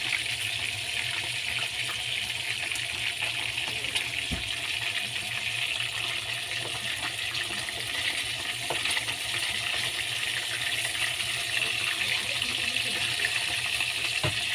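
Fish frying in hot oil: a steady sizzle with scattered small pops and crackles.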